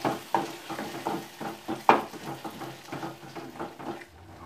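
Metal spatula stirring capsicum pieces through thick masala gravy in a metal kadhai, scraping and clinking against the pan in quick irregular strokes, the sharpest clink about two seconds in. The stirring stops shortly before the end.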